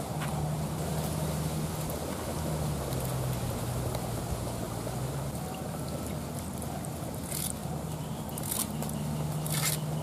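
Leafy green stems swished in a clay pot of water, then leaves snapped off their stems by hand, with a few sharp snaps near the end. A steady low hum runs underneath.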